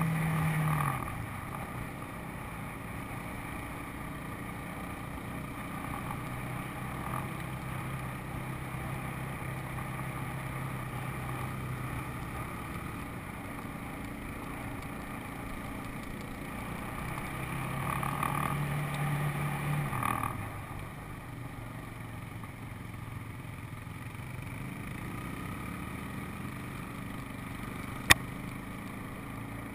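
ATV engine running steadily while riding: the throttle eases off about a second in, opens up again around eighteen seconds in, then eases off again about two seconds later. A single sharp click near the end.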